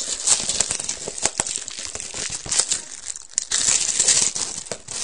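Plastic wrapping crinkling and tearing as a sealed box of trading cards is unwrapped, a busy run of crackles and small snaps.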